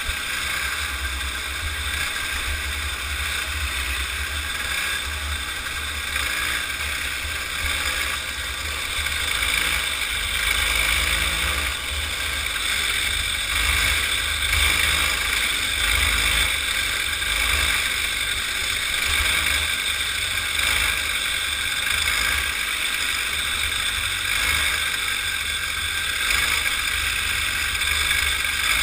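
Kid kart's small engine running at racing speed, heard onboard, its pitch and loudness rising and falling a little through the corners, over a heavy low rumble of wind and vibration on the camera.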